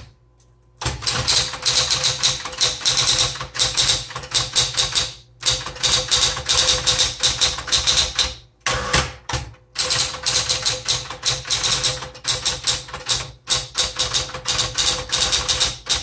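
Smith-Corona Coronet Automatic electric typewriter being typed on quickly: a dense run of sharp keystroke clicks that starts about a second in and is broken by a few short pauses, with the machine's motor humming steadily underneath.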